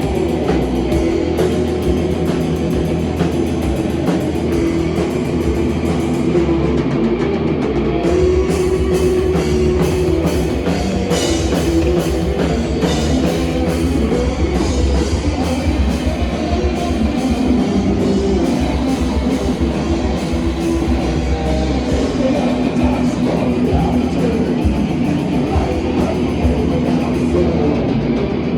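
Live rock band playing loud and without a break: guitar over a drum kit, with the drums striking fast and steadily.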